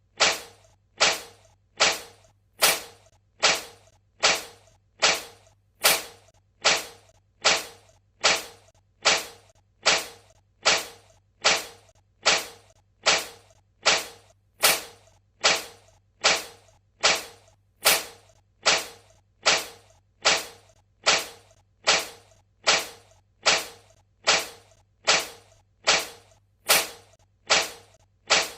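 A cat sneezing over and over, short sharp sneezes at a very even pace, a little more than once a second, over a faint steady low hum.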